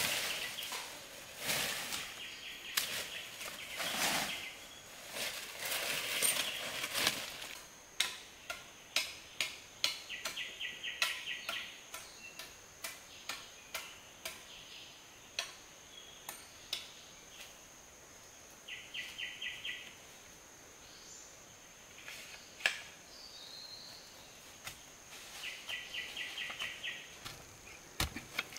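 Irregular sharp knocks and taps, dense at first and sparser later, with a short rapid trill repeating three times and a steady high whine from about a quarter of the way in.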